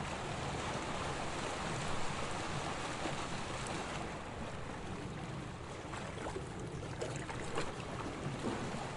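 Sea water washing and lapping in a steady rush, with a few small splashes in the second half.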